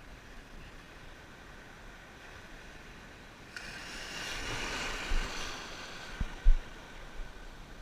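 Sea water rushing as a wave washes in: a hiss that surges suddenly about halfway through and fades after a couple of seconds. A few short low thumps on the microphone follow.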